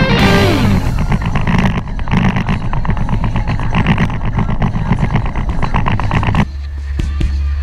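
Wind buffeting the camera microphone and water rushing past a sailboat's hull while under way, a dense crackling rush. About six and a half seconds in, it changes abruptly to a steady deep wind rumble on the microphone.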